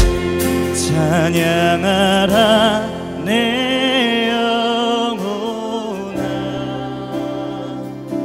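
Live Christian worship song: a singer holds long notes with vibrato over acoustic guitar and the band. The voice drops out about six seconds in, leaving the instruments playing.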